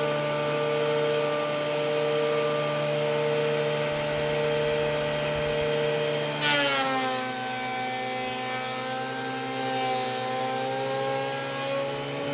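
Bauer 1621E-B benchtop thickness planer running with a steady motor whine. About six and a half seconds in the level jumps briefly and the whine drops in pitch as the cedar board enters the cutterhead and the motor comes under load, and the planer keeps cutting at the lower pitch.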